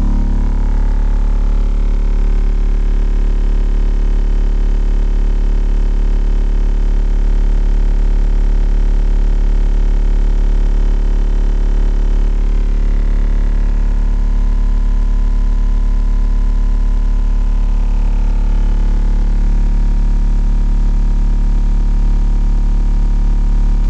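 Two 15-inch Fi BTL car subwoofers playing a loud, steady deep bass note, heard from outside the car, with a buzzing hum riding on it.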